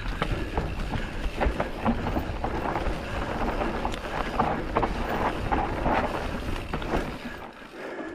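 Mountain bike riding over a rough dirt trail: tyres on gravel and a steady clatter of knocks and rattles from the bike, with wind on the microphone. It quietens about seven and a half seconds in.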